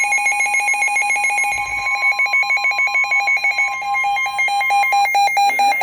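Emergency Alert System alert tone: a loud, rapidly pulsing electronic alarm made of several steady pitches, announcing a Special Marine Warning.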